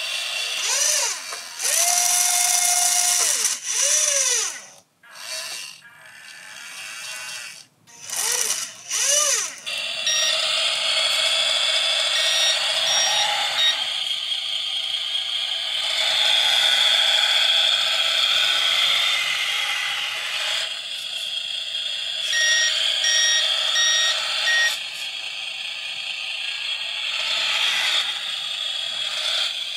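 Small electric motors of a Carson Linde H40D RC forklift whining, rising and falling in pitch as it drives and works its mast, with a short held tone about two seconds in. From about ten seconds in, a steady motor hiss runs on while the model's electronic warning beeper sounds in short runs of quick beeps, starting and stopping several times.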